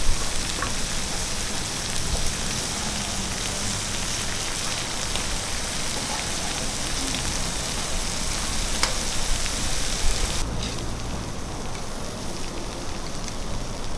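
Ribs sizzling on a hot griddle plate as butter melts on them: a steady hiss with small crackles. About ten seconds in the high sizzle cuts off abruptly, leaving a duller, quieter sizzle of meat on a grill grate.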